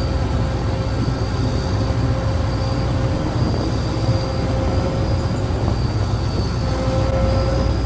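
A vehicle engine running steadily with an even, unchanging rumble and a faint steady whine over it.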